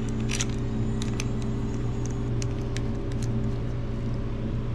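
Light, scattered metallic clicks and ticks of a hand wrench and bolts while the timing chain tensioner is bolted onto a VR6 engine block, over a steady low background hum.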